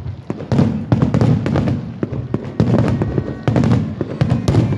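Aerial fireworks bursting in rapid volleys: dense crackling over deep booms, coming in clusters about a second long with brief lulls between them.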